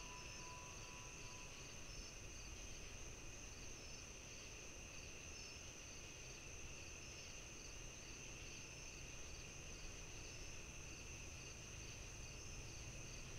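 Faint chorus of chirping insects: a steady high trill with a faint, evenly repeating pulse, over a low background hiss.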